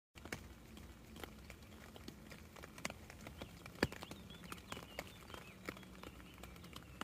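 Water drops tapping on a tent fly, heard from inside the tent: scattered, irregular light taps, one louder tap about four seconds in.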